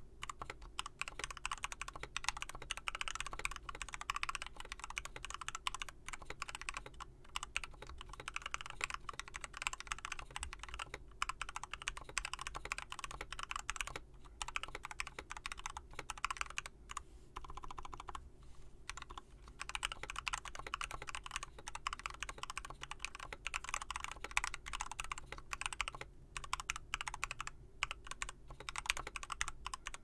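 Continuous fast typing on a KBD75 mechanical keyboard fitted with lubed Gateron Red linear switches: a dense stream of keystroke clacks, with short pauses about 14 and 18 seconds in.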